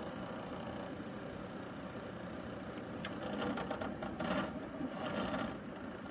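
Pioneer DVL-700 LaserDisc/DVD player running with a steady hum; after a sharp click about three seconds in, a rapid rattling grows louder for a couple of seconds and then eases. The rattle comes at the beginning of a disc, and the owner suspects a failing spindle motor.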